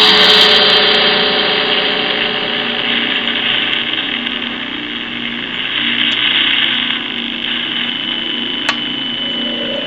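Spirit box app sweeping through radio static: a loud, steady hiss of scanning noise, with one short click near the end.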